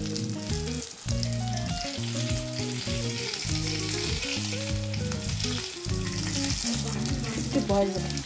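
Besan-battered potato fritters (aloo chop) sizzling steadily as they fry in hot oil in a pan, with low background music notes underneath.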